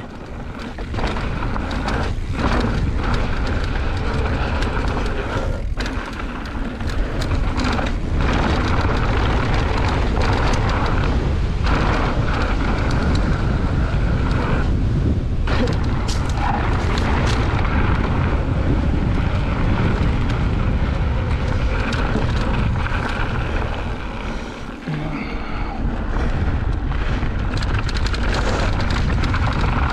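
2020 Specialized Turbo Levo electric mountain bike riding down a rocky dirt trail: wind buffets the camera microphone over the rumble of tyres on dirt and rock, with frequent knocks and rattles from the bike. The noise eases briefly near the end.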